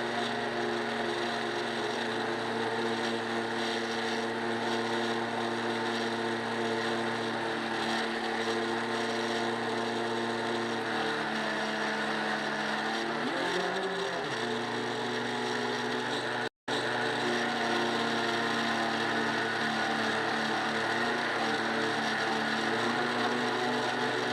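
A steady motor drone at a fixed pitch, dipping and rising again briefly about 13 seconds in, with a split-second break a few seconds later.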